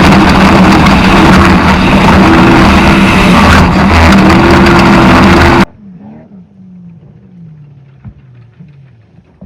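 Off-road race vehicle's engine running hard at very high level, with a heavy rushing noise of wind and terrain over it. About two-thirds of the way through it cuts off abruptly. A much quieter engine follows, its pitch falling again and again.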